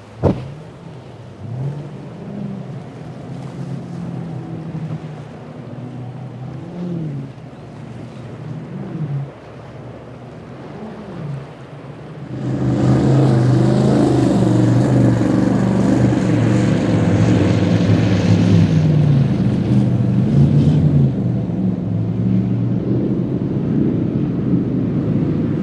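Several outboard engines on a center-console boat running over waves, their pitch rising and falling repeatedly as the throttle and load change. About halfway through, a much louder offshore powerboat's engines take over, running steadily at high speed with a wide hiss of water and spray.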